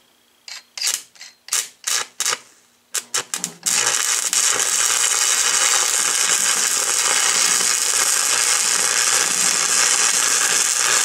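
A few short scraping strokes, then about three and a half seconds in an arc is struck and a stick (arc) welder runs a bead on a steel axe head, a loud, steady crackling hiss.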